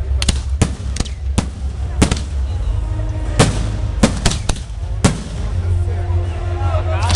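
Aerial firework shells bursting: about a dozen sharp bangs at irregular intervals over a steady low rumble.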